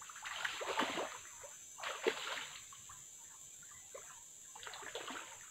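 Water splashing in three bursts, at the start, about two seconds in and near the end, as a hooked softshell turtle thrashes at the surface against the line, fighting hard.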